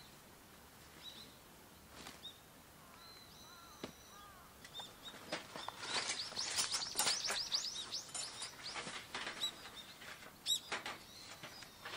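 Small birds chirping, then a run of light metallic clinks, rattles and scrapes as a thin steel folding fire pit is slid from its bag and unfolded, loudest in the middle.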